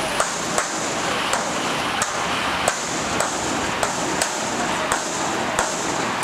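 Repeated knocking by hand on a heavy metal gate, about ten sharp bangs at a steady pace of roughly one and a half a second, over a steady background hiss.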